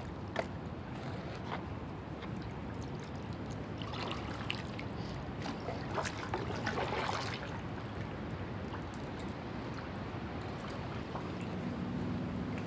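Water trickling and splashing around a kayak on a river, with a few louder splashes about four and six to seven seconds in, over a steady low rush.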